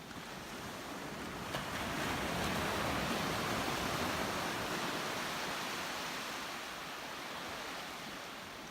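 Ocean surf: a wave's rush swells up to a peak about three seconds in, then slowly fades away.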